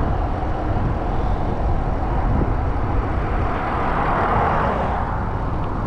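Steady wind rumble on the microphone while cycling along a highway, with a vehicle passing: its noise swells and fades about four seconds in.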